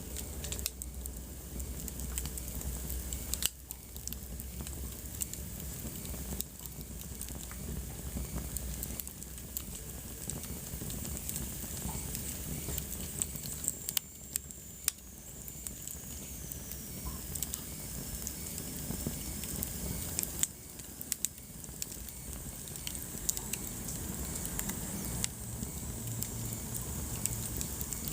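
Wood fire burning in a fireplace: irregular crackles and sharp pops over a low, steady rumble of flame, with a faint high whistle sliding down in pitch about halfway through.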